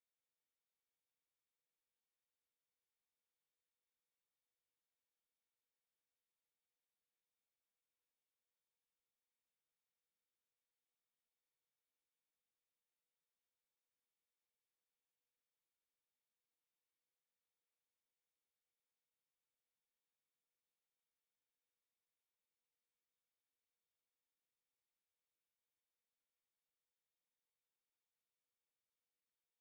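Steady 7777 Hz sine-wave test tone, a single high-pitched pure note held at constant loudness.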